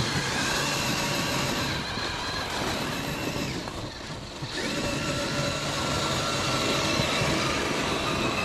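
Electric motors and geared drivetrains of radio-controlled scale crawler trucks whining steadily as they drive, with several high steady tones. The sound dips briefly about four seconds in and then picks up again.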